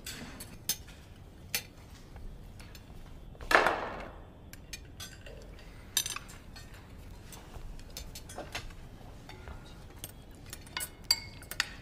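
Cutlery and dishes clinking at a dinner table: scattered sharp clicks of spoons and utensils on plates, with one louder clatter about three and a half seconds in.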